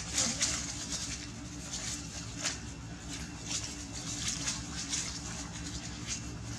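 Dry fallen leaves crackling and rustling in short, irregular crunches as macaques scuffle and move over them, over a steady low hum.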